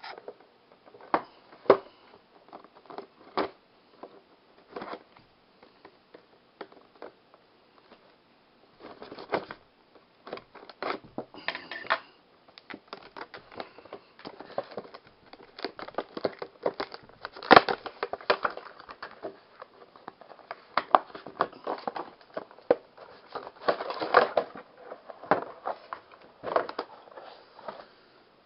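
Clear plastic packaging crinkling and clicking as hands slide a cardboard box out of its sleeve: irregular sharp clicks and short rustles, the loudest click a little past halfway.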